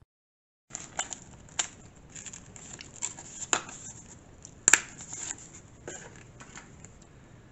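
After a moment of silence, hands rummage through packaging in a cardboard box: paper and a plastic resealable bag crinkling and rustling, with scattered small ticks and clicks, the sharpest a little under five seconds in.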